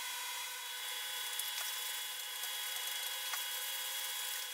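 Quiet workshop room tone: a steady hiss with a few faint, steady electrical whine tones and a couple of faint ticks.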